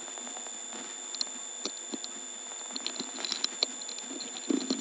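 Clicking and clattering of XY step-by-step telephone switching equipment heard down a telephone line, among them the stepping of a line finder, over a steady power-supply hum and whine on the selector. The clicks are scattered at first, bunch together about three seconds in, and turn into a louder clatter near the end.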